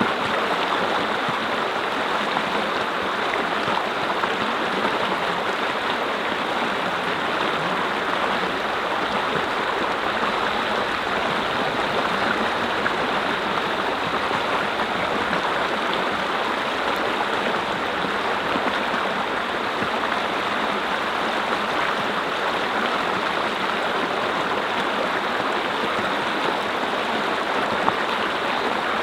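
Mountain stream: water flowing and splashing over rocks in a steady, even rush.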